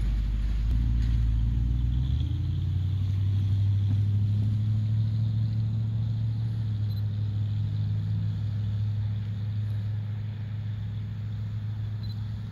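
Diesel locomotives of a distant freight train running, heard as a steady low drone. A deep wind rumble on the microphone sits under it for the first couple of seconds, and the drone eases off slightly near the end.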